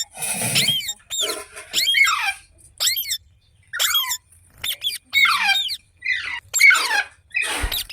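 Rose-ringed parakeet (Indian ringneck) giving a series of short, shrill calls, about nine in quick succession, many sliding downward in pitch.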